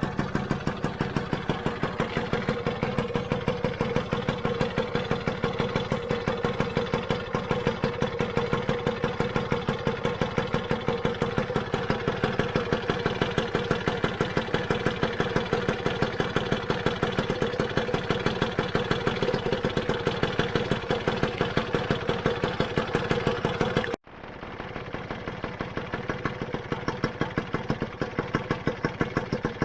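Rebuilt Lambretta GP's single-cylinder two-stroke engine idling steadily, its firing pulses even and regular. The sound breaks off abruptly for an instant near the end, then the engine carries on running.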